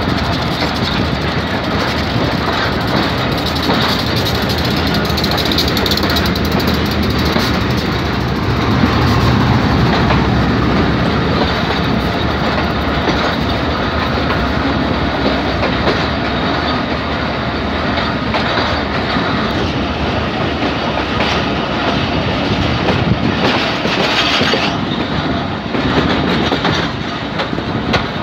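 Passenger train pulling out of a station, heard from its own coach: a steady rumble and clatter of the wheels on the rails and points.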